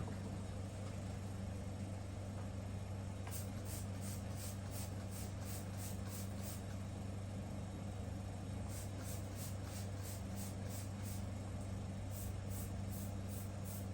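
Alcohol sprayed from a spray bottle onto a dirty spinner bearing to clean it: three runs of quick short squirts, about three a second, over a steady low hum.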